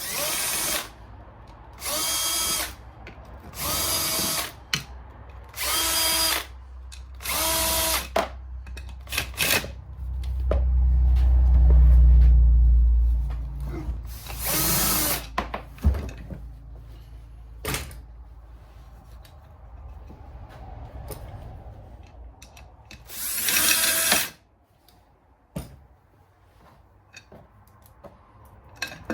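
Power drill running out the clutch-side cover bolts of a Suzuki LTR 450 engine: short whining runs of about a second each, five in quick succession, then two more spaced apart. A loud low rumble about ten seconds in is the loudest sound.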